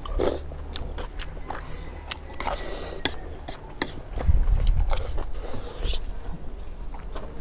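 Fast eating: chewing, with metal spoons scraping and clicking against metal platters of fried rice. A low rumble comes in about four seconds in.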